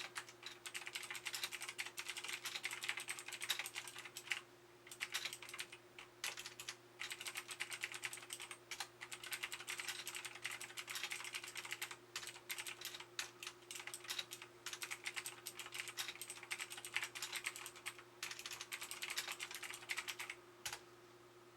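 Fast, continuous typing on a RiZUM G-FACTOR Z10 mechanical keyboard, with rapid key clicks broken by a few short pauses, over a faint steady hum.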